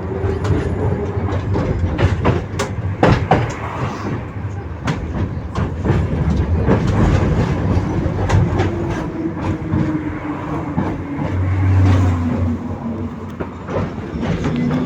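71-623 low-floor tram running along the track: a steady rumble with sharp clacks and knocks from the wheels over rail joints, and a whining tone that slowly falls in pitch over the second half.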